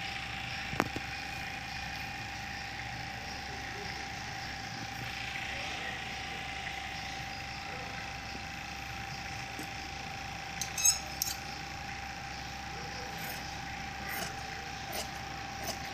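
Scissors snipping through cloth: one sharp snip about a second in, a quick cluster of louder snips around the middle, then a run of lighter, evenly spaced snips near the end, over a steady background hum.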